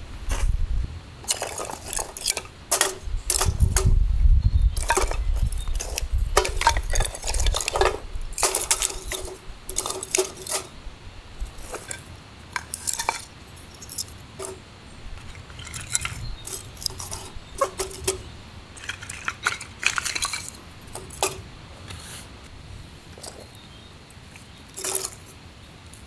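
Camp cookware and metal utensils clinking and knocking as they are handled, in many irregular sharp strikes, some ringing briefly. A low rumble runs under the clinks from about three to eight seconds in.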